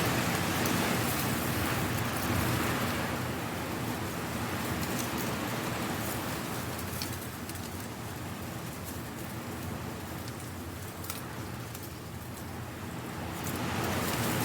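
Strong wind gusting through dry leaves, the leaves rustling and skittering with a constant fine crackle. The wind swells louder at the start and again near the end.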